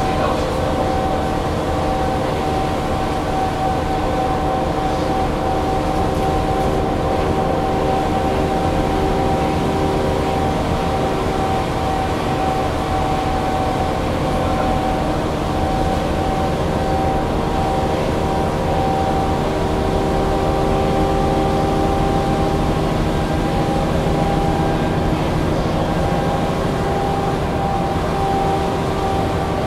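Mercedes-Benz O530 Citaro city bus driving at a steady speed, heard from inside: an even rumble with a steady whine from the drivetrain.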